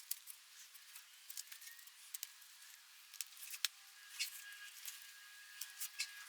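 Faint, irregular small clicks and ticks, a dozen or so scattered over a few seconds.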